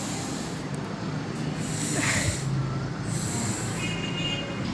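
A woman's voice making the phonic sound of the letter F, a breathy "fff" hiss, given twice over a low steady hum.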